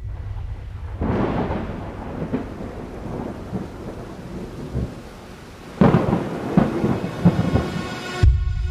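Thunderstorm sound: rain and a low rumble, with a roll of thunder breaking about a second in and fading, and a second, sharper thunderclap near six seconds, ending in a low thud.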